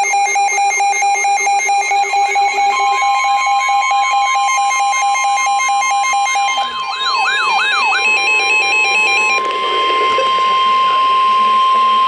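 Several NOAA weather radios, a Midland and a Reecom among them, sounding their tornado warning alarms at once: overlapping rapid electronic beeping, joined about three seconds in by a long steady alert tone, with a warbling siren-like tone for about a second near the middle.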